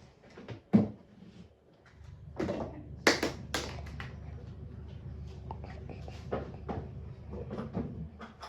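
Scattered knocks and clicks over a steady low hum that starts about two seconds in. The loudest knocks come about three seconds in.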